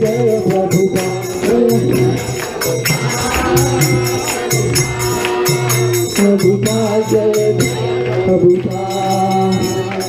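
Devotional kirtan: a group singing a chant together, with a mridanga drum and a steady, ringing beat of small hand cymbals.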